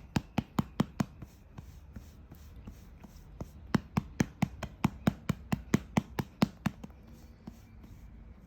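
A hand patting a baby's back to bring up a burp after a feed: a quick run of about seven pats, a pause of about two seconds, then a longer run of about a dozen, some four or five pats a second.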